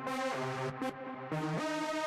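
Electronic dance music with a sustained synthesizer chord line that changes notes about every half second.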